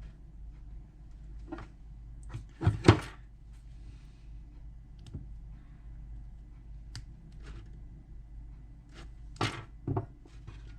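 Parts of a car hatch lock being handled on a workbench: light clicks and taps, with two pairs of sharp knocks, the loudest about three seconds in and another pair near the end.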